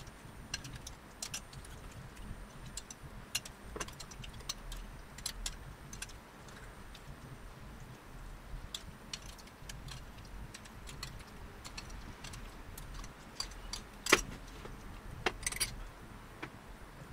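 Spoon clinking against a bowl while eating cereal: small sharp clicks at irregular intervals over a quiet background, with one louder clink about three-quarters of the way through.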